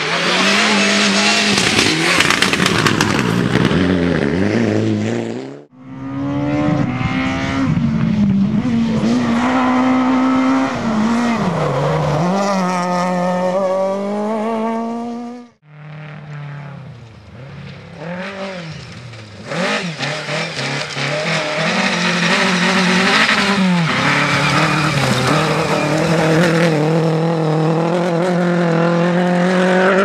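Rally car engines at full throttle, revving high and dropping back again and again through gear changes and lifts. The sound breaks off abruptly about six and sixteen seconds in, as one car's pass gives way to the next.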